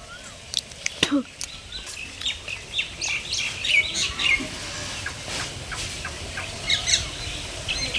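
Small birds chirping outdoors in many short, quick chirps, with a couple of short sharp noises about a second in.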